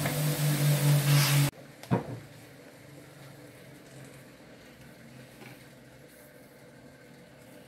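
Paper honing wheel charged with diamond paste running, with a knife edge held against it: a steady hum and hiss that cuts off abruptly about one and a half seconds in. A single knock follows, then faint room tone.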